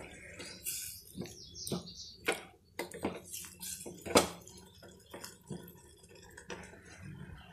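Wooden spatula stirring a thick, wet curry of dried vegetables, chickpeas and dal in a stainless steel pot: irregular knocks and scrapes of the spatula against the pot with wet squelching, the loudest knock about four seconds in.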